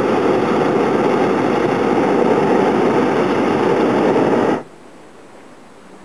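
Hot air balloon's propane burner firing in one long steady blast that cuts off suddenly about four and a half seconds in.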